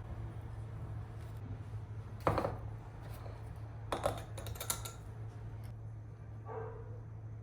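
A few short knocks and clicks of kitchen utensils and dishes being handled, three sharper ones spread through the middle, over a steady low hum.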